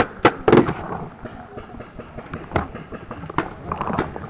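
Paintball markers firing: a quick cluster of sharp pops at the start, then single pops spaced out over the next few seconds.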